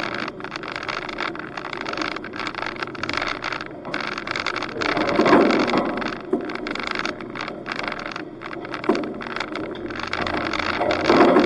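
Wind noise on a roof-mounted camera microphone while a 4WD drives along a dirt track, with the vehicle's running noise underneath. The noise swells about five seconds in and again near the end.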